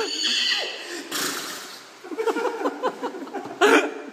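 Men laughing, with a man's quavering imitation of a horse's whinny, a fast run of short rising-and-falling cries, about halfway through.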